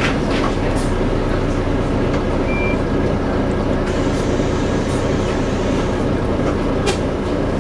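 Volvo B9TL double-decker bus running steadily, with the drivetrain drone that is taken for a bad axle noise, a few rattles and a short beep about two and a half seconds in.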